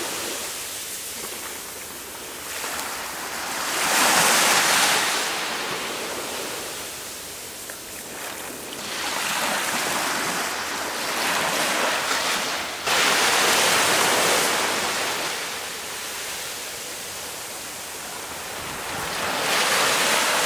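Small waves breaking and washing up over wet sand at the water's edge, the surf swelling and fading every few seconds.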